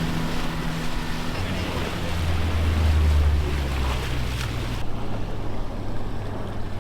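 A boat's motor running with wind and water noise. Its low hum deepens and grows louder about a second and a half in, and the wind hiss drops off abruptly past the middle.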